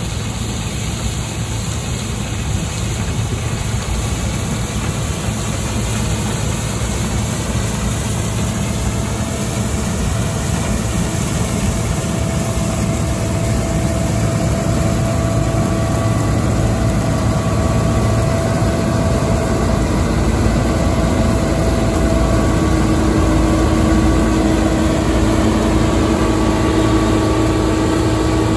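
Case IH 2388 Axial Flow combine harvester running under load while cutting oilseed rape: a steady diesel engine drone with a higher steady whine coming in about halfway, growing louder as the machine comes closer.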